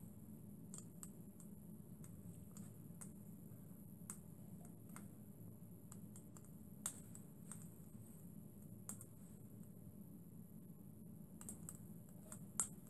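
Faint, irregular light ticks and clicks from small model steam engine boilers heating over their fuel burners, over a low steady hum. Two clicks, near the middle and near the end, are sharper than the rest.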